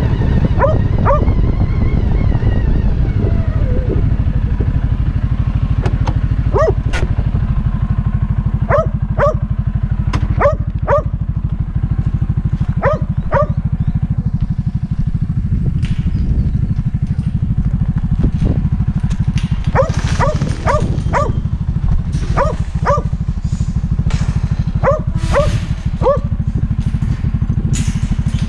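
Kelpie barking in short clusters of two or three barks, again and again, over the steady low running of a CFMOTO UForce 550 side-by-side's single-cylinder engine.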